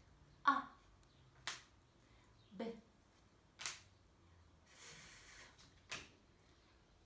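A woman voicing single phonics letter sounds one at a time, roughly one a second: short clipped consonants and vowels, with one hissing sound held about half a second near the middle.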